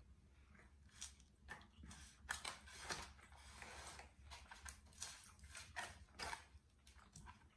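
Faint eating sounds: a fork clicking and scraping in a styrofoam takeout container, in short irregular strokes with a longer scratchy stretch a couple of seconds in.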